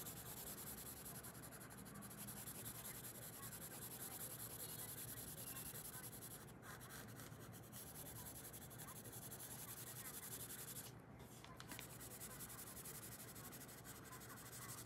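Brown coloured pencil shading back and forth on paper, a faint steady scratching with a couple of brief pauses.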